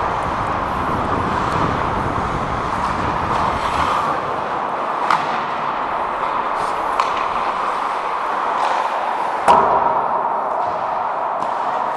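Ice hockey play on a rink: a steady scrape of skates and arena noise, with sharp clacks of stick and puck about five and seven seconds in and a louder sharp bang of puck or stick about nine and a half seconds in.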